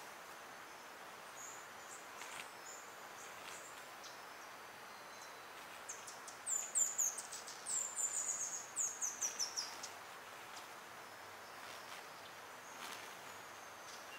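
A songbird singing a quick run of high, falling notes about six seconds in, lasting about four seconds, with a few softer high chirps before it. A steady background hiss runs underneath.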